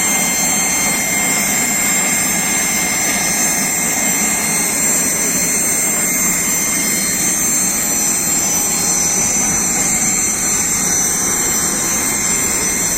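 Steady jet turbine noise: an even rush with several high whining tones holding level throughout.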